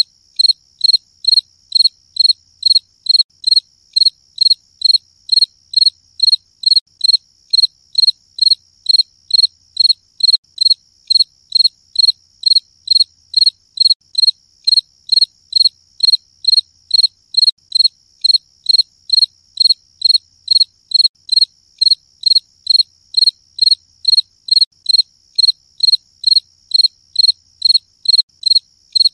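Large cricket chirping: an even, unbroken run of short high-pitched chirps, about two a second, with a fainter steady high trill underneath.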